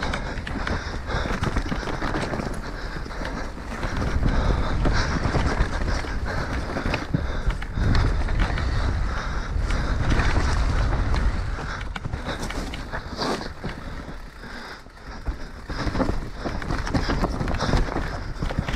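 Orbea Rallon enduro mountain bike descending a rough dirt-and-rock trail at speed: wind rushing over a helmet-mounted action camera's mic, tyres rumbling over the ground, and frequent knocks and rattles from chain and frame over the bumps. The noise eases briefly about three quarters of the way through.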